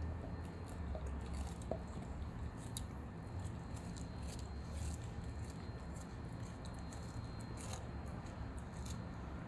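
German shepherd dog eating, chewing with irregular short clicks over a steady low hum.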